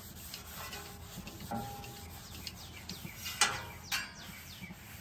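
Avocado oil sizzling faintly as it burns off on the hot steel top of a Weber Slate griddle turned up to high, a thin protective coat on a surface gone dry and white. Two short, sharp sounds come about three and a half and four seconds in.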